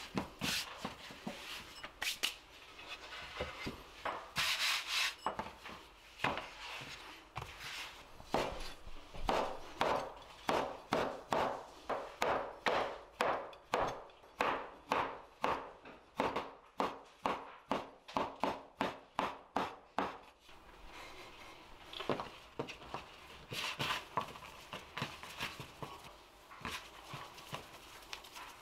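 Floured noodle dough being pressed and folded by hand on a worktop, then a kitchen knife cutting the folded dough into strips on a wooden cutting board: an even run of chops about two a second that stops near 20 seconds in. After that comes softer, uneven rustling as the cut noodles are handled.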